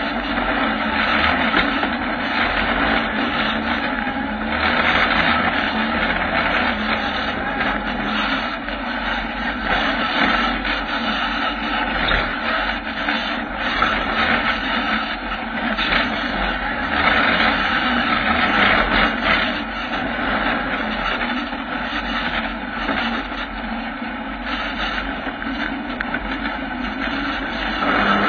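A Kawasaki ZX-9R inline-four motorcycle engine running in an off-road buggy as it crawls over rough, rocky ground, its level rising and falling with the throttle. Short knocks and rattles from the buggy's frame run through it.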